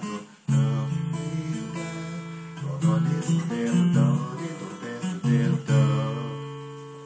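Acoustic guitar played solo, a passage of plucked chords and melody notes. The last chord, about six seconds in, rings out and fades.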